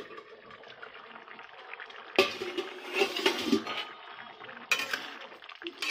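Stainless-steel lid and spatula clinking against a kadai as the lid is lifted off, two sharp metal clinks about two and a half seconds apart, over the soft hiss of masoor dal with potatoes simmering in the pan.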